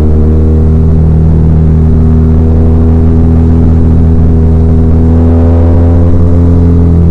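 BMW R1200R's air- and oil-cooled boxer twin engine running at steady revs under way, a deep even drone, its pitch dipping slightly near the end.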